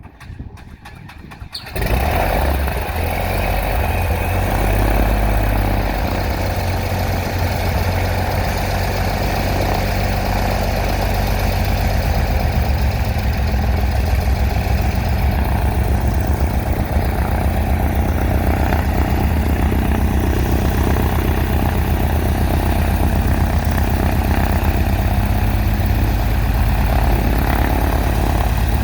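Cessna 182's air-cooled six-cylinder piston engine cranking and catching about two seconds in, then running steadily with its propeller turning. This is the first start after a new cylinder and a new exhaust system were fitted.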